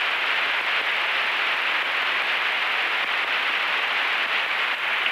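Aircraft VHF radio static in the headset: a loud, steady hiss, clipped to a narrow radio band, from an open transmission on which no voice has come through yet.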